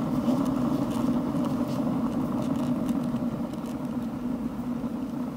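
Hamster exercise wheel spinning on its axle bearing, making a steady mechanical noise with faint ticks: the noise of a rusted bearing.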